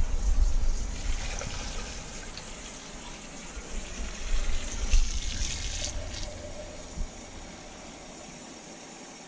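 Water being poured from a glass pitcher into a large stockpot, loudest in the first couple of seconds, then a kitchen tap running as the pitcher is refilled under it near the end.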